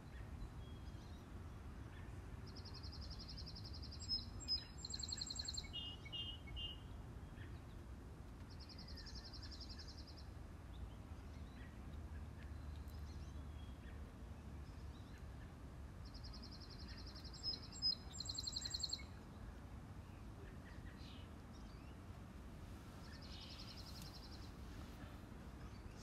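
Songbirds singing in a garden: a high, even trill repeats about every six to seven seconds, with sharper higher notes after two of the trills. A faint low steady rumble of background noise lies underneath.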